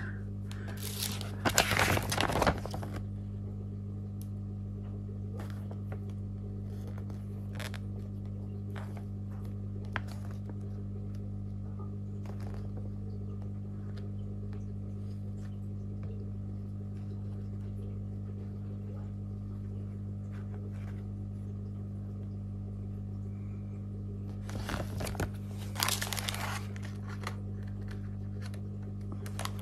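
Paper and packaging rustling as the boxed LED headlight bulbs and their fold-out instruction sheet are handled. There are two spells of crinkling, one just after the start and one near the end, with a few light clicks between them, over a steady low hum.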